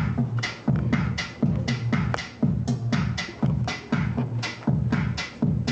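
Pop song playing, with a steady, driving drum beat of about two hits a second.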